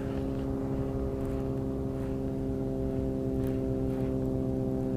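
A steady low hum with several evenly spaced overtones, unchanging in pitch and level, with a few faint soft ticks.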